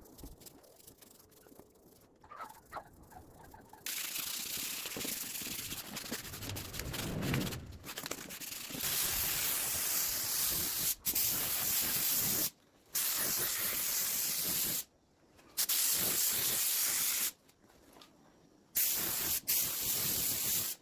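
Compressed-air spray gun hissing in long bursts from about four seconds in, stopping and starting again several times as the trigger is released and pulled. Before it there are faint scratching and rubbing sounds.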